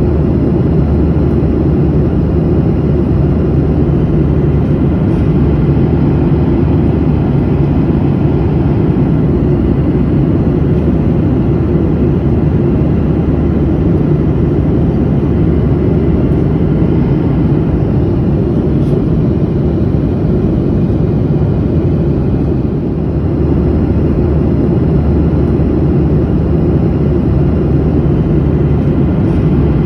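Steady cabin noise of a passenger airplane in flight: a loud, even rumble of engine and airflow, heaviest in the low range, with a faint steady drone, briefly a little softer about three-quarters of the way through.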